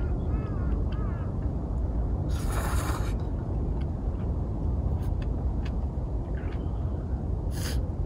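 Wind buffeting the microphone in an open field, a steady low rumble. There are a few short bird-like chirps in the first second, scattered faint clicks, and a short hissing gust about two and a half seconds in and again near the end.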